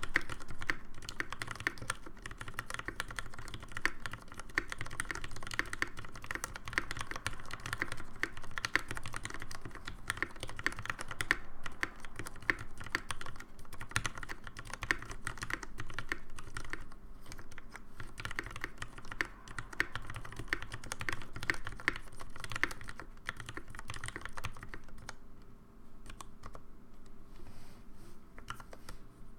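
Continuous fast typing on a Kyuu WKL custom mechanical keyboard with linear 64 g Cherry MX vintage black switches and ePBT keycaps. The keystrokes come in a dense, irregular stream of clicks and clacks, easing off briefly near the end.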